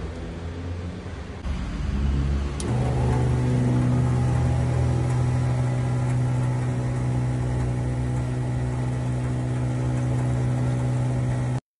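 After a low rumble, a click about two and a half seconds in, then an electric water pump hums steadily as water runs from a gooseneck tap into a stainless-steel sink.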